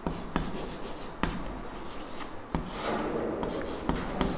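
Chalk writing on a chalkboard: scratchy strokes with a few short, sharp taps at uneven intervals.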